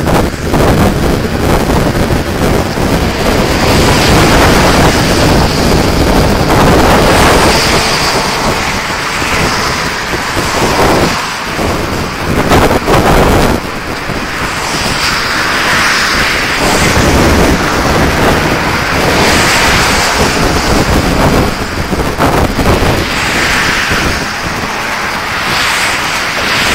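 Wind buffeting a phone's microphone in loud, uneven gusts, over the steady rush of motorway traffic running alongside.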